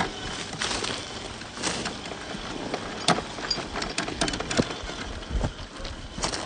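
Scale RC rock crawler (RC4WD Trail Finder 2 with a brushed 550 motor) driving slowly over loose rocks: the tires crunch over stones with irregular sharp clicks and knocks, under a faint electric motor and gear hum.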